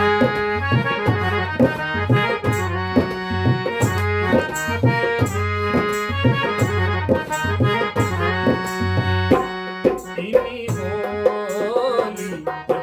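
Harmonium and dholak playing the instrumental introduction to a Garhwali folk song: a reedy harmonium melody over a steady rhythm of dholak strokes. About nine or ten seconds in, the drum's deep strokes stop and a wavering melody carries on.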